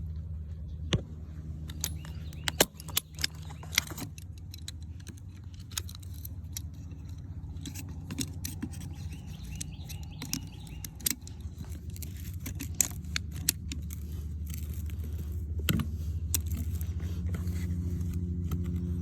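Vehicle engine running with a steady low hum that grows slightly louder near the end, with many sharp metallic clicks and jingles over it, like keys jangling.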